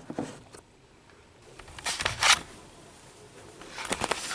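Rustling and scuffing handling noise, two short bursts about two seconds in and more near the end, with quiet room tone between.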